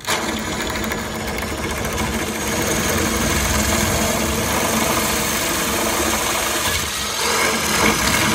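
Power drill running a 5/16-inch twist bit through a car bumper panel, boring out a clip hole. The drill starts abruptly and runs steadily, the cutting turning brighter about seven seconds in.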